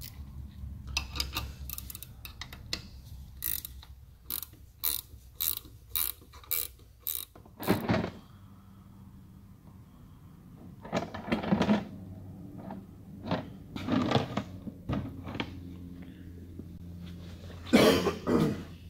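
Ratchet wrench clicking in short strokes, about two a second, as it tightens the nut on a valve spring compressor to push a valve spring down on an LS cylinder head. After that, scattered handling knocks while motor oil is poured from a jug into a cup, and a louder clatter near the end.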